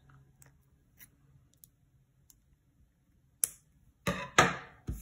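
Plastic beads and fishing line being handled: faint light ticks, a sharp click about three and a half seconds in, then two louder short clatters near the end.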